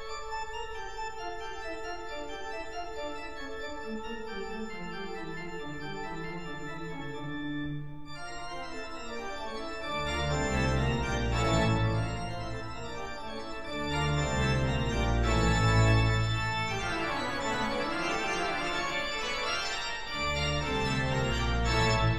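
Background organ music: held chords over a slowly falling line of notes, joined by heavier low bass notes from about ten seconds in.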